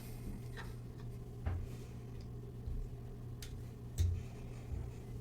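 A few scattered short clicks and soft knocks, the strongest about a second and a half in and near four seconds, over a steady low hum.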